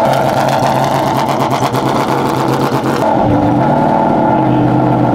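The 2016 Ginetta LMP3's Nissan quad-cam V8, freshly started, running steadily at idle. Its note changes slightly about three seconds in.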